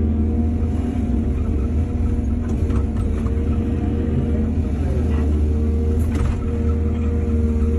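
Heavy diesel engine of earthmoving machinery running steadily at a constant speed, with a brief dip in pitch about five seconds in and a few faint clinks.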